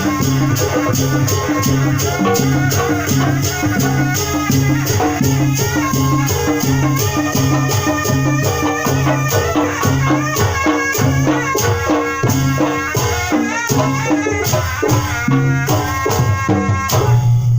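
Sundanese bangreng ensemble playing: kendang drums pulsing low under sharp, rattling strikes about three a second and a wavering melody line. The music stops abruptly near the end.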